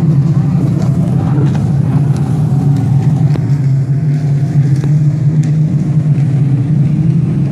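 Motorized watercraft engines running with a steady, loud low drone.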